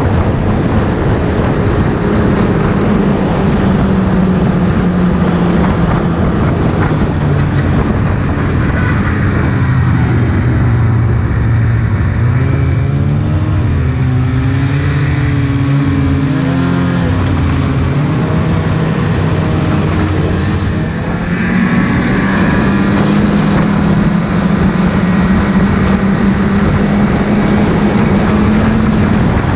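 Snowmobile engine running along a trail with rushing noise. About a third of the way in, its note drops and wavers as the throttle is eased and worked. Near the two-thirds mark it comes back up to a steady cruising pitch.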